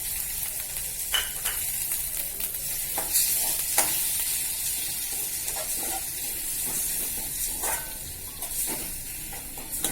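Beaten eggs and chopped greens with shallots sizzling in a hot frying pan, with a spatula scraping and tapping against the pan a few times as it is stirred.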